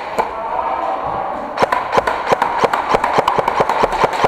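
Airsoft guns firing in rapid succession: a fast, even string of sharp cracks at about six a second, starting about a second and a half in.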